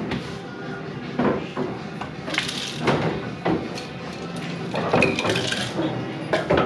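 Busy bar-room background: a scatter of sharp clinks and knocks over indistinct chatter.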